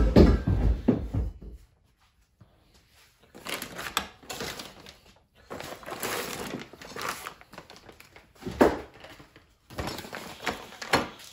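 Plastic bag rustling and crinkling as it is slit with a box cutter and pulled off a welded steel turbo exhaust manifold, with a heavy bump at the start and a sharper knock about two-thirds of the way through as the manifold is set down on the table.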